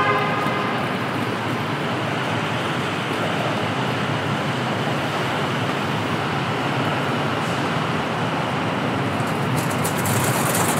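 Airport terminal concourse ambience: a steady, even wash of background noise, with a brief pitched tone right at the start and a patter of light clicks near the end.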